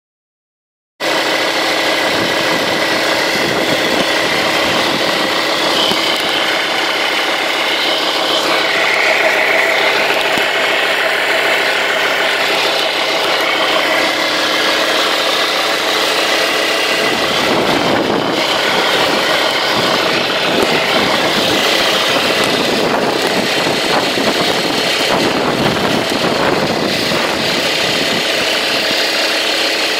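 Alfa Romeo 156 2.4 JTD five-cylinder turbodiesel idling, with a steady whine coming from the auxiliary belt area; the cause is unknown. The phone recording it is being moved around the engine bay, adding handling noise.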